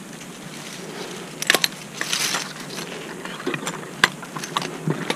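Handling noise of a cordless drill and climbing gear in a tree: scattered clicks and knocks, with a brief rustle about two seconds in. The drill motor is not running.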